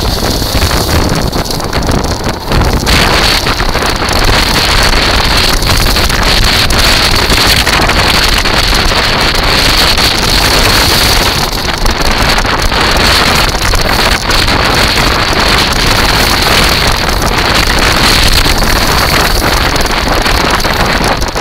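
Wind buffeting the microphone over the rumble of a kite buggy's tyres rolling across shingle and sand: a loud, steady rushing noise with a constant high hiss.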